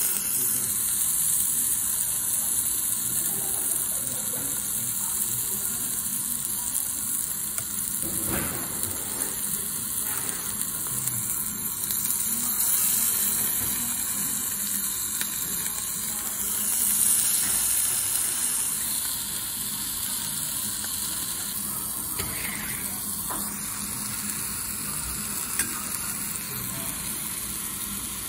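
Pieces of meat sizzling on a hot iron grill grate and cast-iron serving plate: a steady frying hiss.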